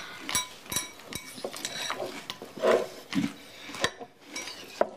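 Cutlery and dishes clinking during a meal: a series of light chinks as knives and spoons meet plates and cups.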